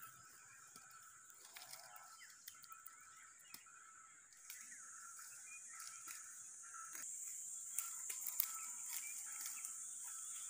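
Rural outdoor ambience: birds chirping here and there over a steady, high insect drone that grows louder about halfway through, with a few faint clicks and crackles.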